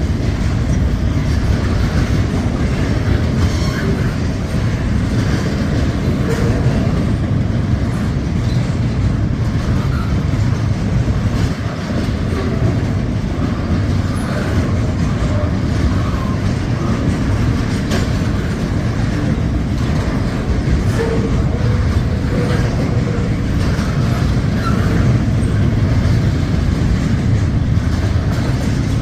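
Freight train rolling past close by: a steady, loud low rumble of wheels on rail with scattered clicks.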